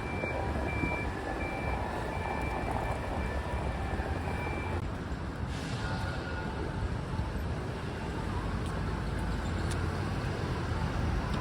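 Traffic and vehicle rumble, with a high electronic beep repeating about once a second for the first few seconds, then stopping.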